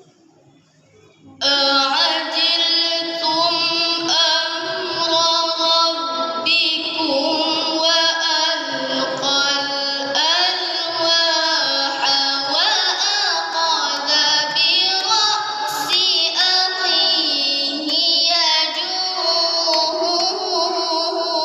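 A single high voice chanting in melodic Quran recitation (tilawah) style. It begins about a second and a half in, with long held notes and wavering, ornamented runs, and continues without a break.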